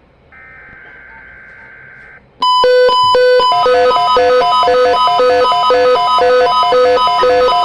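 Emergency-alert weather radio receiving a test alert: a faint buzzing data burst of the alert header, then, a little over two seconds in, a loud electronic alarm starts with three quick beeps and goes on as a repeating two-tone beeping pattern.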